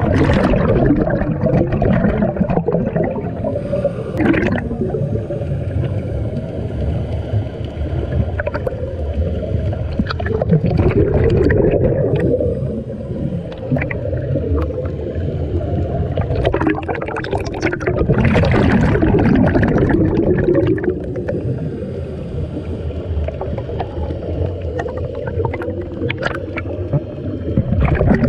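Underwater scuba breathing: exhaled air gurgling and bubbling out of a diver's regulator in long loud bursts several seconds apart, with a steady low rumble of water between them.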